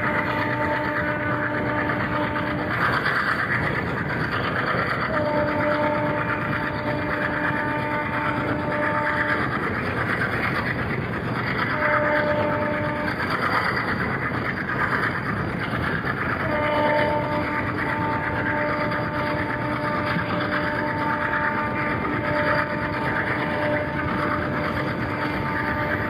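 Horn of an Alco WDM-3A diesel locomotive sounded in several blasts: one trailing off in the first few seconds, a longer one, a short one, and a long blast lasting through the last third. Under it runs the steady rumble and wheel clatter of the passenger train moving at speed.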